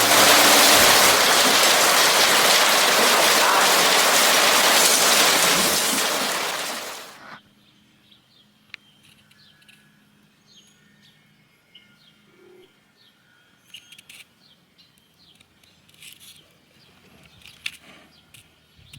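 Water rushing loudly and steadily as runoff pours off a road. It stops about seven seconds in, leaving quiet with birds chirping.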